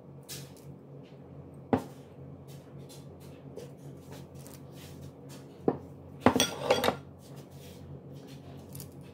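Kitchen clatter of dishes and utensils: a sharp knock about two seconds in, another just before six seconds, then a brief rattle. A steady low hum runs underneath.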